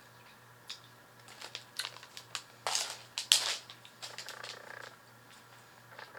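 Plastic snack bag crinkling and being torn open, with a run of sharp crackles, the loudest about three seconds in.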